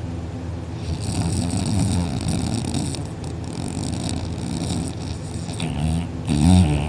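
A person snoring in deep sleep: two long, rough snores, the second and loudest near the end, over a steady hum.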